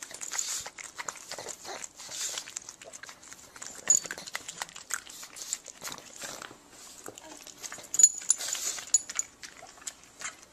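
A pug close to the microphone making short, irregular breathy noises mixed with clicks.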